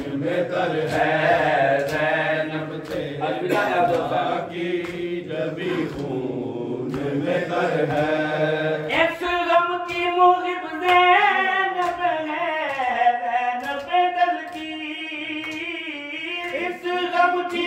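Men chanting a Shia noha (lament), first as a group of lower voices, then from about nine seconds in a single higher voice carrying a wavering, ornamented melodic line. Sharp slaps sound through it, from hands striking bare chests in matam.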